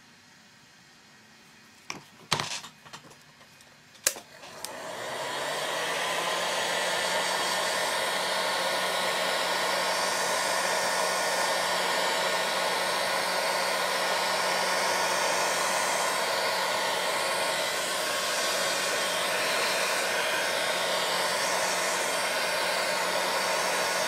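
A few knocks, then about four seconds in a handheld craft heat gun switches on and runs with a steady blowing whir and a low hum, drying fresh paint over crackle medium. It cuts off right at the end.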